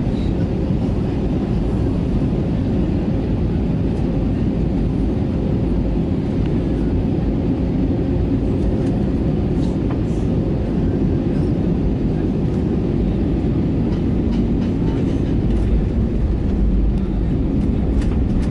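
Steady low rumble of an Airbus A320neo airliner heard from inside the passenger cabin, with a few faint clicks.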